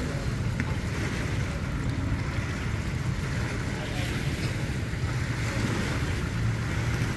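Wind buffeting the microphone over choppy lake water lapping at the shore, with a low steady drone underneath from an idling boat engine.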